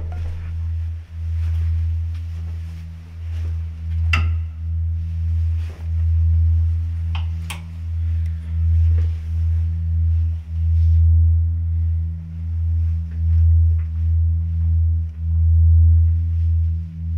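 A deep electronic drone from a film score, a low hum that swells and fades about once a second. A couple of faint clicks sound over it.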